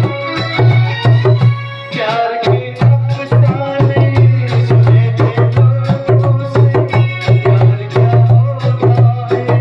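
Small rope-tuned djembe played with bare hands in a steady rhythm of strokes, over recorded film-song music with sustained melody lines and a strong bass.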